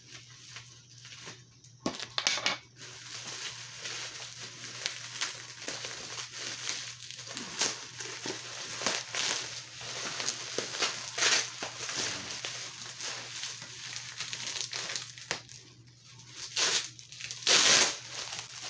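Bubble wrap crinkling and crackling as it is handled and pulled open, in irregular bursts that get louder near the end.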